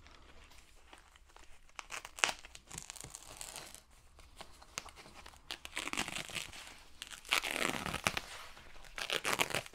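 Packing wrap being cut and pulled off a wrapped kit part: irregular crinkling and tearing, busier and louder in the second half.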